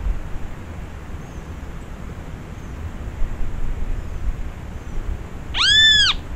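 A single clear call near the end, about half a second long, rising and then falling in pitch, over a low background hiss with faint high chirps.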